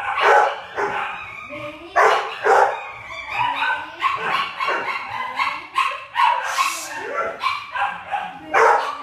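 Dogs barking repeatedly in short loud bursts, with yips and whimpers among them.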